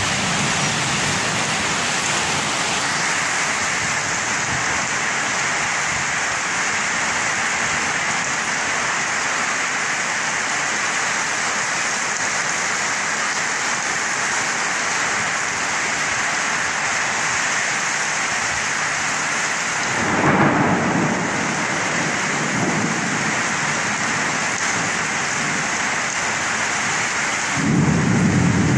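Heavy rain pouring in a steady hiss during a summer thunderstorm, with two low rumbles of thunder, one about two-thirds of the way through and one near the end.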